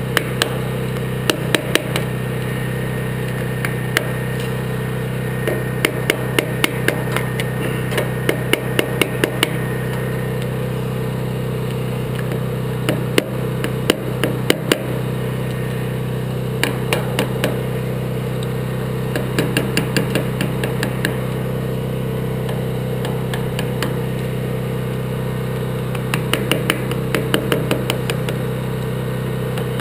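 Clusters of quick, light hammer taps on a steel punch driven against a broken-off bolt stub with a snapped easy-out stuck in it. Under them a generator engine runs with a steady hum.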